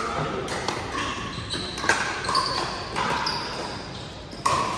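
Pickleball paddles hitting plastic pickleballs during rallies in a large gym: a run of sharp, hollow pocks about every half second, each with a brief ringing tone.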